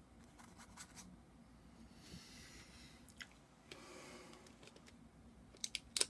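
Faint rubbing and rustling from hands handling painting things, in two short spells, then a quick run of sharp clicks near the end, which are the loudest sounds.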